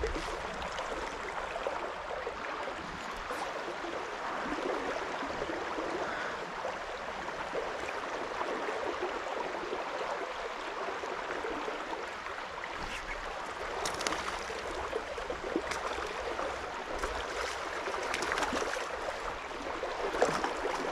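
Creek water running steadily over a shallow riffle, an even rushing and babbling. A few faint clicks and knocks come in the second half.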